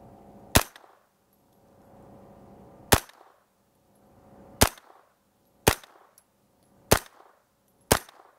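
Six single gunshots from a 9mm carbine at an uneven pace, one to two and a half seconds apart and quickening toward the end. Each shot is short, with a brief echo after it.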